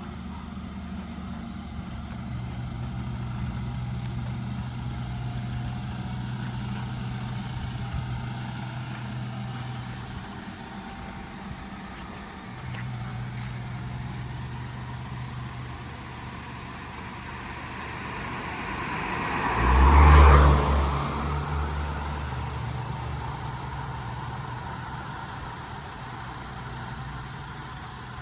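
A motor vehicle's engine running with a steady low hum. About twenty seconds in, a vehicle passes close by, swelling to a peak and fading over a few seconds.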